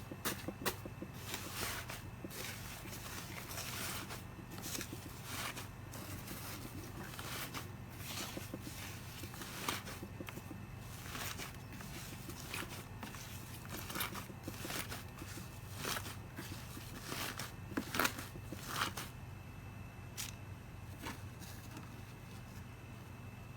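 Slime being squeezed and stretched by hand, giving many irregular sticky clicks and crackles over a steady low hum.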